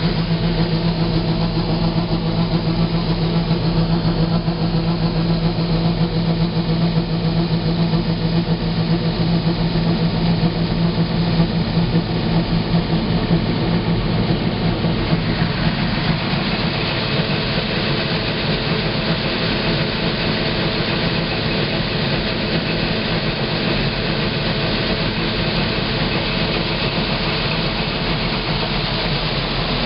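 Combine harvester running steadily while its unloading auger empties the grain tank into a truck, heard from inside the cab. A steady low hum dominates the first half, then gives way about halfway through to a rougher, noisier running sound.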